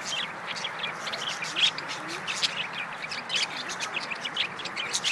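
Budgerigars chattering: a steady stream of short, high chirps and squawks, several a second.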